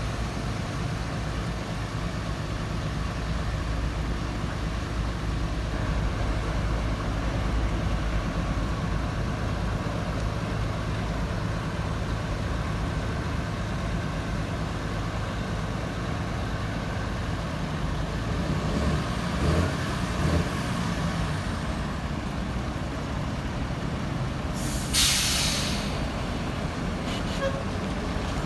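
Heavy diesel engine running steadily at idle, with a short loud hiss of released air near the end.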